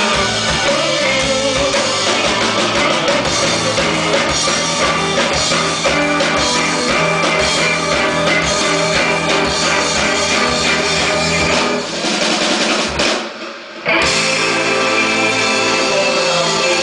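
Live rock band with drum kit and electric guitar playing loud and amplified. About thirteen seconds in the playing drops out for under a second, then comes straight back in.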